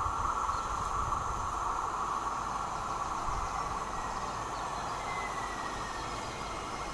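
T4 tram-train (Siemens Avanto) approaching along the line from a distance: a steady hum and rail noise, with a faint thin whine sliding slightly down about five seconds in.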